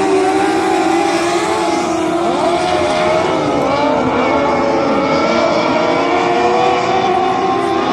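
Engines of several small coupe-bodied dirt-track race cars running a heat together. Several engine notes overlap, each rising and falling as the cars throttle up on the straights and ease off into the turns.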